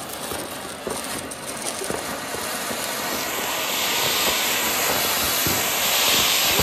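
A ground firework, such as a fountain or spinner, spraying sparks with a steady, loud hiss that slowly grows louder, with a few faint pops.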